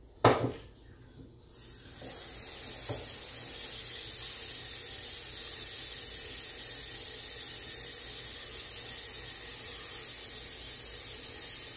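A sharp knock, then tap water that starts about a second and a half in and runs in a steady hiss as the pot roast's pot is filled with water.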